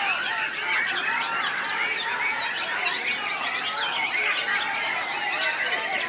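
Many caged white-rumped shamas singing at once: a dense, unbroken mass of overlapping whistles, trills and chattering calls.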